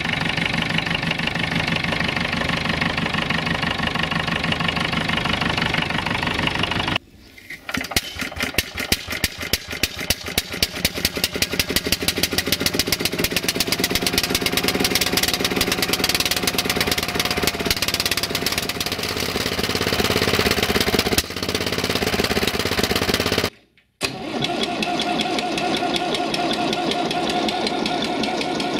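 A Massey Ferguson 35 tractor engine running. Then, about seven seconds in, a BCS 2000 walk-behind mower's single-cylinder Lombardini engine starts: a few separate firing knocks quickly speed up into fast, even running. Near the end, after another cut, a UTB DT445 tractor engine runs steadily.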